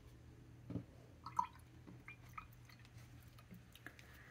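Paintbrush rinsed in a glass jar of water: a soft knock, then a few faint clinks against the glass and small watery sounds, and the brush is dabbed on a paper towel near the end.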